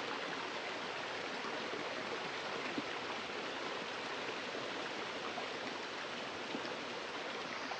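Steady rush of running water from a stream or waterfall, with a couple of faint ticks.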